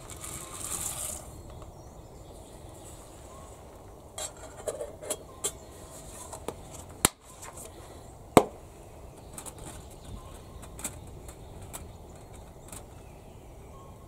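Dry shell pasta rustling as it is poured into a cooking pot, then scattered clinks and knocks of the metal pot lid and stove windscreen, with a sharp clank that rings briefly about eight seconds in.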